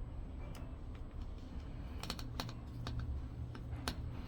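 A few light, sharp clicks and taps as small parts of a smart door lock's fingerprint module are handled and worked loose by hand, most of them bunched about two seconds in, over a low steady hum.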